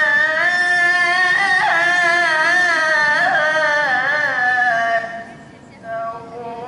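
Young man's melodic Qur'an recitation (tilawah) into a handheld microphone: one long phrase held on a wavering, ornamented pitch, ending about five seconds in, then after a short pause a new phrase begins.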